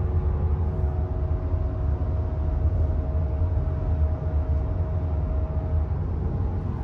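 2019 Subaru WRX STI at highway speed: steady low road rumble with a buzzing drone made of several faint steady tones, one dropping away near the end. The owner takes the drone for a damaged rear wheel bearing, most likely.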